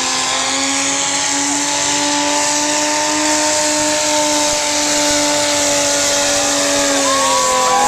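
Naturally aspirated super stock pulling tractor's engine running flat out as it drags the weight-transfer sled down the track. Its note sags slowly in pitch through the second half as the sled loads it down.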